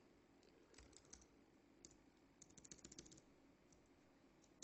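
Faint computer keyboard typing: a few scattered keystrokes, then a quick run of them about two and a half seconds in, and a few more near the end.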